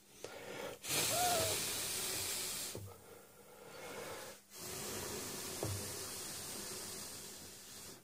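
A person's breath hissing close to the microphone, in four stretches of one to three seconds with short pauses between.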